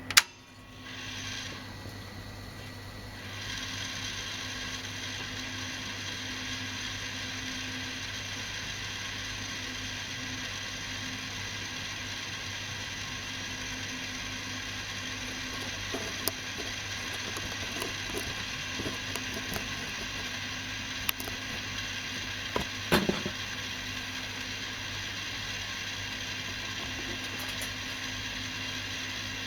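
Victor BR-6400 VHS deck: a sharp mechanical click, then a few seconds in the tape starts spooling at high speed with a steady grinding hiss, an abnormal noise the owner traces to the tape's guide roller. A few small clicks and knocks come about two-thirds of the way through.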